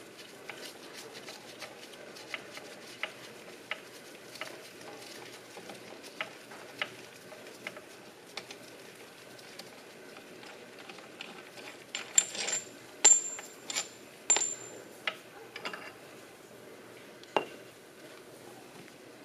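Metal clicks and clinks of a John Deere 4020 engine's connecting rod cap and bolts being loosened by hand and the cap lifted off the crankshaft journal, to read the Plastigage strip for rod bearing clearance. Small scattered ticks, then a run of sharp ringing clinks about two-thirds of the way through and a single knock near the end.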